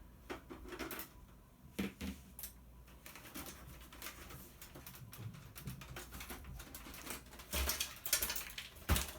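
Screwdriver working screws out of a CD changer's metal cabinet: a run of small rapid clicks and taps, with a few louder knocks near the end.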